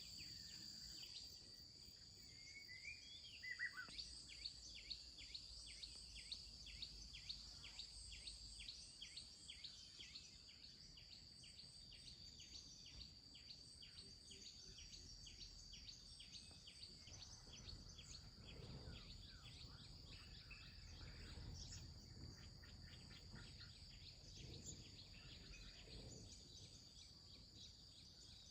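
Faint outdoor ambience: a steady high-pitched insect drone, with a rapid run of repeated short chirps, about two to three a second, through roughly the first half, and a few gliding bird chirps near the start.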